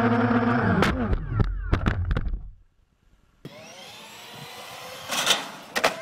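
Quadcopter drone's electric motors whining steadily, then a string of sharp hits about a second in as it strikes the ground, the motor pitch falling away as the props stop. After a brief silence, a new clip begins with faint outdoor background and a couple of short noisy bursts near the end.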